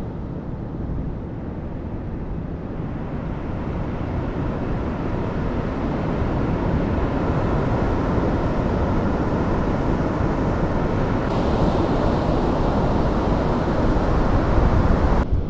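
Wind buffeting the microphone over ocean surf washing onto the beach, a steady rushing noise that slowly grows louder.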